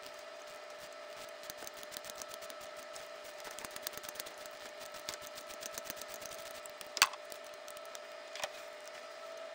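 Quarter-inch-drive ratchet clicking in quick runs as it works a 10 mm socket on a long extension to unscrew a diesel glow plug, with a sharper click about seven seconds in and another near the end. A faint steady whine runs underneath.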